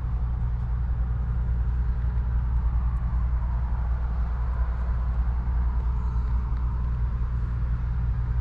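Volvo semi truck's diesel engine idling steadily, heard inside the cab as a low, even hum.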